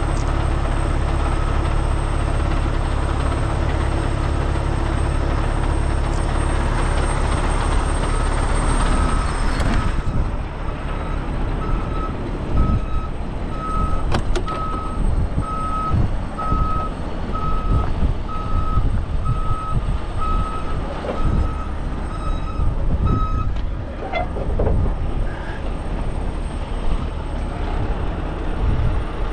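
Heavy truck's engine running, then its backup alarm beeping evenly, about one and a half beeps a second, for roughly thirteen seconds while it reverses. Strong wind buffets the microphone throughout.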